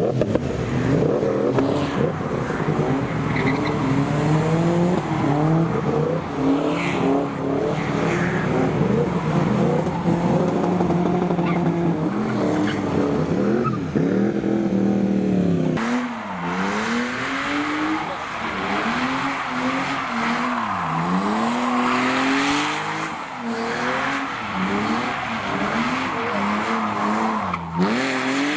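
A car drifting: its engine is revved hard, the pitch swinging up and down over and over, while the tyres squeal and skid. The tyre squeal grows louder about halfway through.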